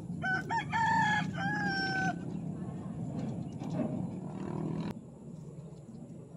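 A rooster crowing once, about two seconds long: a few short notes run into one long held note. A steady low hum lies underneath, and there is a single click near the end.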